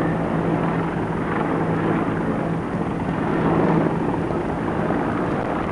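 Firefighting helicopter in flight: a steady rotor and engine drone over a broad rushing noise, its constant hum fading a little under halfway through as it moves away.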